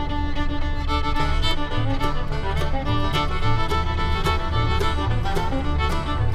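Background music: an upbeat string tune with fiddle and a steady beat.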